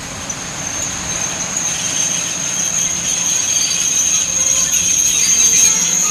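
Train wheels squealing on rails: a high steady screech over rushing, rumbling noise, swelling louder.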